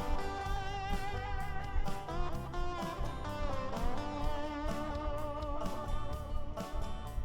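Background music led by an electric guitar, with bent notes over a steady low beat.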